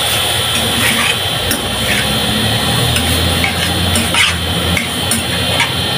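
Metal spoon stirring diced chicken in a stainless steel pot, scraping and clinking against the pan at irregular intervals, about once a second.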